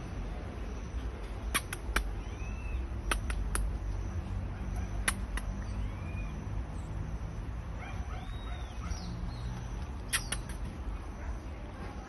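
Short, very high-pitched chirps in quick groups of two or three, with softer arching whistled notes between them, over a low steady rumble.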